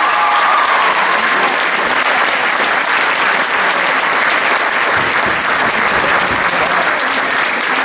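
Crowd applauding steadily and loudly.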